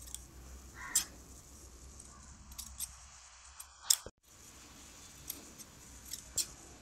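Large steel tailor's shears snipping off the excess cloth beside a stitched seam: a series of sharp snips and blade clicks, the loudest about a second in and again near four seconds, over a faint low hum.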